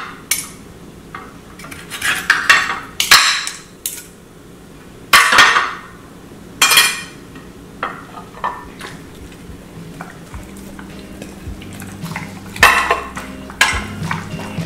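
A knife cutting raw steak on a ceramic plate, the blade scraping and clinking against the plate in a series of short, irregular strokes. A faint steady low hum comes in about two-thirds of the way through.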